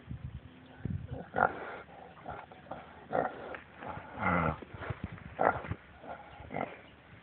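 Pot-bellied pig snuffling and sniffing with its snout in the dirt close up: a run of short breathy snorts, with a low grunt a little after four seconds in.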